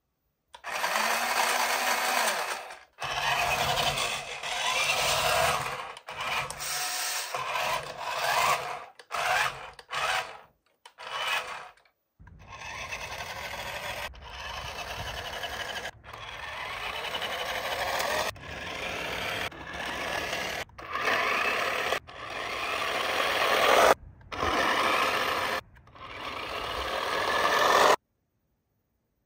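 Rough scraping and rubbing noise in a run of short clips, each cut off abruptly. Several grow louder before they stop.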